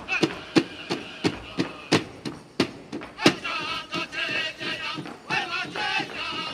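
A Native American powwow-style drum beats steadily for a traditional dance, about three beats a second, with one hard accent beat about three seconds in. Right after the accent, a voice starts singing over the drum.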